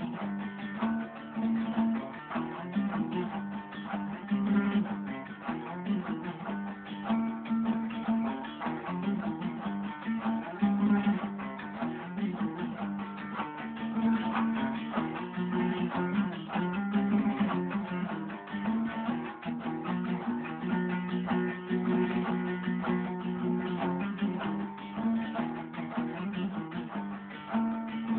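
Dutar, the two-stringed long-necked Persian lute, playing a melody in rapid plucked and strummed strokes over held low notes.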